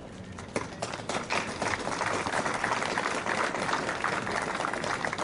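Crowd applauding, dense clapping that breaks out about half a second in and then holds steady.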